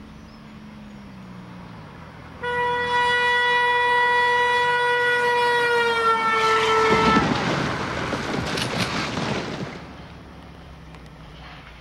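A car horn held down as the car drives past, steady and loud, then dropping in pitch as it goes by: the Doppler effect. The horn cuts off about seven seconds in, under a loud noisy crash with a few sharp knocks as the car hits a tree, fading out about three seconds later.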